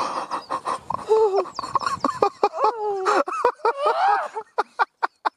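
Men's voices crying out in wordless exclamations and groans of alarm, followed by a few short clicks near the end.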